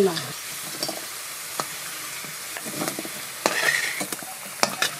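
Potato chunks sizzling as they fry in oil in a kadai, with a metal spatula scraping and clicking against the pan as they are stirred.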